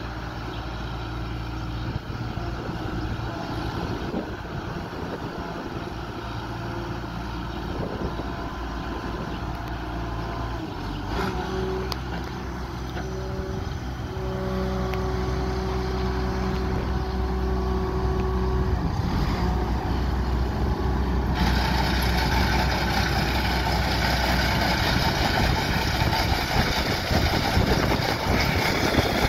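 1998 Case IH 2388 Axial-Flow combine's six-cylinder diesel engine running as the machine moves slowly, a steady engine tone that shifts in pitch a few times. About two-thirds of the way through, a much louder rushing noise joins as it is heard close behind the rear of the machine.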